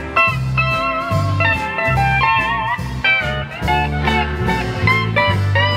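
Country band music with a pedal steel guitar taking an instrumental solo, its notes sliding and bending over a steady bass line and rhythm.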